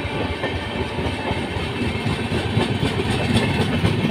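Passenger coaches of an express train rolling slowly past, their wheels clattering and rumbling on the rails.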